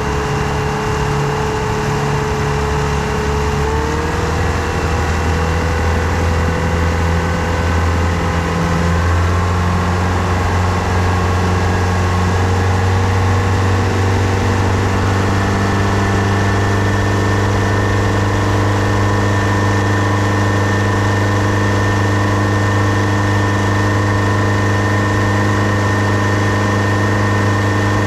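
New outboard motor running during break-in, with the 'gawd awful noise' that signals a problem with the motor. Its speed rises a little twice in the first ten seconds, then holds steady.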